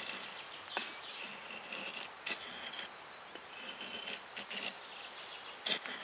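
Sharp axe blade shaving thin curls off a split wooden stick: a run of crisp, high scraping strokes about a second each, with a few sharp clicks as the edge bites into the wood.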